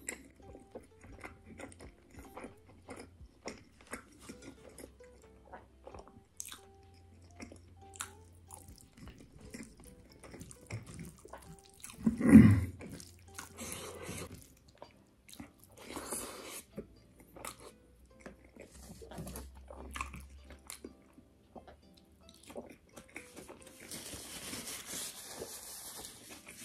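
Close-miked mukbang eating: wet chewing and lip smacking on chicken liver and rice eaten by hand, with many small clicks and one louder burst about twelve seconds in. Near the end comes a steady rustle of tissue paper wiping the mouth.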